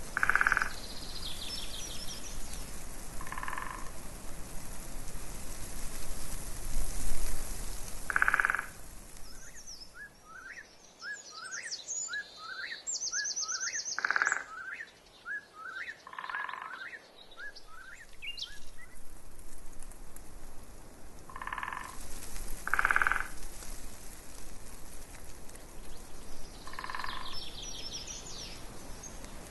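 Frogs croaking in short calls every few seconds, with birds singing and chirping; a run of quick rising notes comes in the middle.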